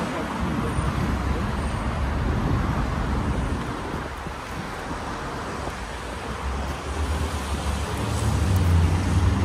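Road traffic going by: a steady rumble of engines and tyres that grows louder near the end.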